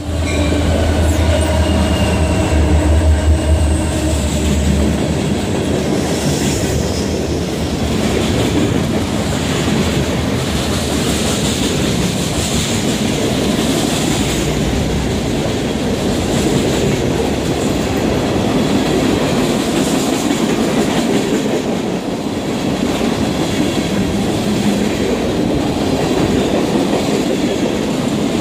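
EMD SD40-2 diesel locomotive passing close by: its engine's low drone fades over the first five seconds. Then freight cars roll past with steady clickety-clack of wheels on rail joints and faint high wheel squeals now and then.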